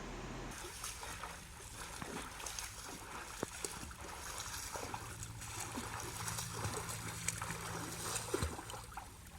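Kayak paddle strokes splashing and dripping in lake water, with scattered sharp knocks.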